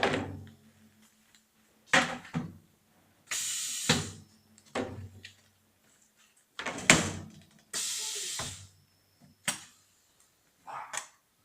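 Pneumatic knocks and bursts of compressed-air hiss from a YILMAZ DK 502 two-head PVC window welding machine working through its cycle: sharp knocks a few seconds apart and two hisses of about a second each, over a faint low hum.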